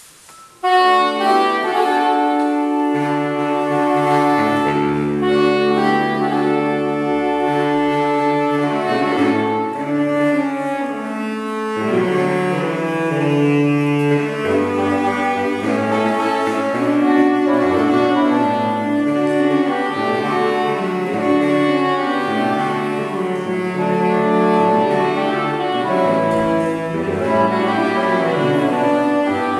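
Saxophone quartet of soprano, alto, tenor and baritone saxophones playing in sustained chords over a moving baritone bass line, starting about a second in.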